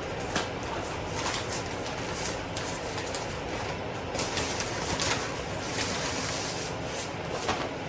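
Packaging rustling and crinkling as a plant is unwrapped, with a series of short irregular crackles over a steady background hiss.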